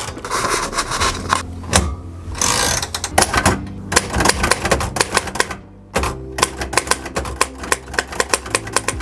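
Manual typewriter keys clacking in quick runs of strikes, with the carriage being pushed back by its return lever near the start and a brief pause about six seconds in.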